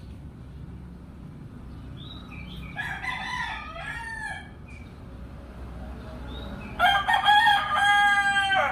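A rooster crowing: one long, loud call near the end, held level and dropping at its close. It comes after a shorter, wavering call about three seconds in.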